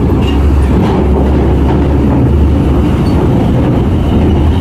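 Diesel engine of a heavy container truck running close by as it rolls slowly over a steel-grate ferry ramp, a steady low rumble.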